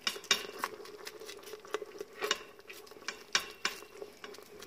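A spatula stirring sauce in an Instant Pot's stainless steel inner pot, with scraping and several irregular knocks against the pot as the cornstarch-thickened sauce is worked on sauté.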